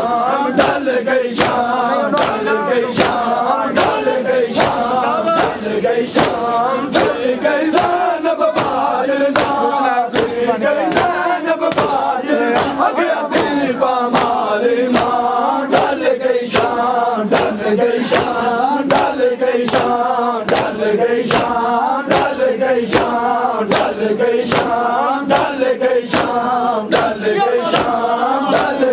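Crowd of men chanting a Shia noha (mourning lament) in unison, over a steady beat of sharp slaps from hands striking chests in matam, about one and a half a second.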